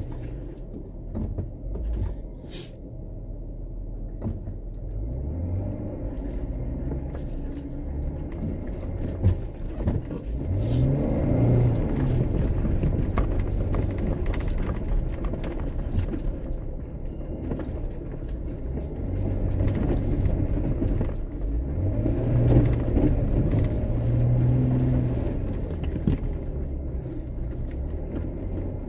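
Jeep Wrangler JKU's V6 engine running while the Jeep drives through mud, heard from inside the cab. The engine revs up and down twice, about ten seconds in and again past the twenty-second mark, with small rattles and jingles in between.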